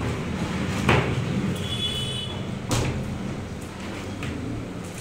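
Skin, feathers still on it, being torn by hand off a freshly slaughtered chicken carcass, with two sharp tearing sounds about a second in and near three seconds. A steady low rumble runs underneath.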